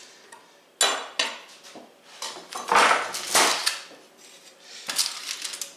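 Knives knocking down onto a wooden cutting board about a second in, then a foil-lined metal baking sheet dragged across the board, scraping with the foil rustling, and a few light knocks near the end.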